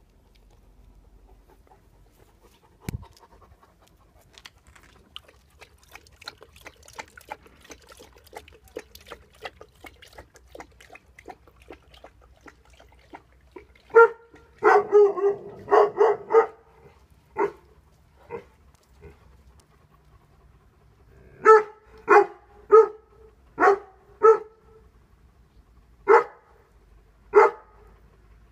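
A dog panting faintly with quick rhythmic breaths, then barking: a run of several loud barks about fourteen seconds in, followed by single barks and short quick runs of barks spaced out over the rest of the time.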